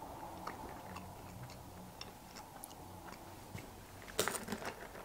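Quiet chewing of a soft, pasty chocolate-covered fruit chew, with faint mouth clicks. About four seconds in comes a short, louder crinkle of the plastic sweet pouch being handled.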